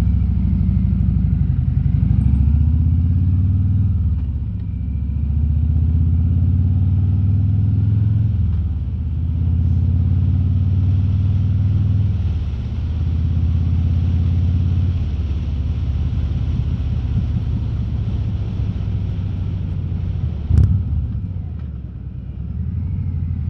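Harley-Davidson Road King's V-twin engine running under way, heard from inside the rider's helmet. Its pitch rises and falls several times as the bike accelerates and eases off, with wind hiss over it and a single sharp knock about twenty seconds in.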